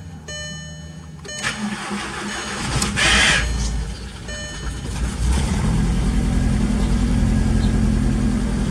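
Volkswagen Jetta engine being cranked over, with a loud noisy burst about three seconds in. It catches about five seconds in and settles into a steady, rhythmic idle. The car is being tested for a P0300 random multiple-cylinder misfire.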